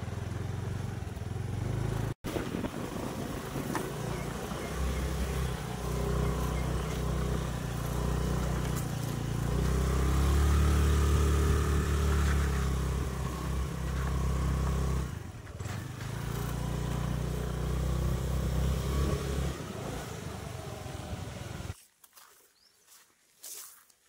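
Motor scooter engine running as it rides up a dirt hill track, a steady low rumble that grows louder midway. Near the end the sound cuts off abruptly to near quiet.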